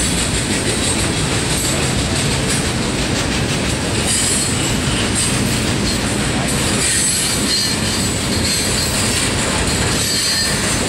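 Freight cars of a mixed freight train rolling steadily past, their wheels clattering on the rails, with a thin high-pitched wheel squeal coming and going.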